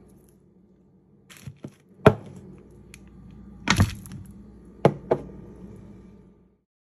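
Kitchen items knocking on a countertop: about six sharp knocks and clatters over a low steady hum, the loudest about two seconds in and just before four seconds, with the sound cutting off near the end.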